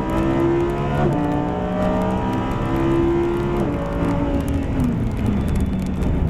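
Lamborghini Huracán LP610-4's V10 engine pulling hard at track speed. Its pitch holds and then drops sharply about a second in, and falls again near four and five seconds in as the gears change.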